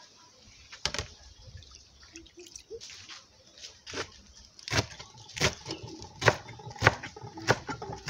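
Kitchen knife chopping fresh spinach and scent leaves on a wooden cutting board. A few scattered knocks come first, then steady chops about every two-thirds of a second from about halfway in.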